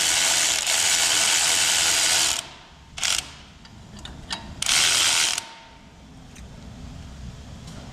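Power ratchet spinning a bolt off a lift-kit bracket on a Jeep Wrangler's front suspension. It runs steadily for about two seconds, then stops. It gives a short burst about three seconds in and a longer one about five seconds in.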